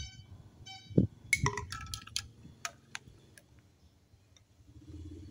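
Scattered light clicks and knocks of hard plastic: a toy fishing rod and plastic toy fish tapping against each other and the tub, loudest about a second in.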